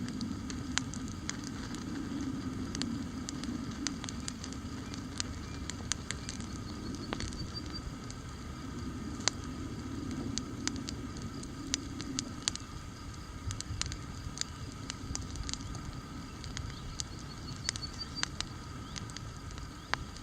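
Wood campfire crackling: many sharp, irregular pops and snaps over a low, steady rumble of burning.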